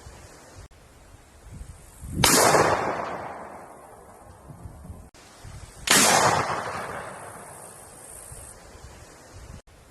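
Two single gunshots about three and a half seconds apart, each followed by a long echo that fades over about two seconds.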